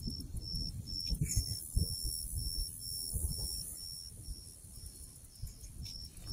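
Night insects chirping in a steady high-pitched pulse, about three chirps a second, over an uneven low rumble that fades toward the end.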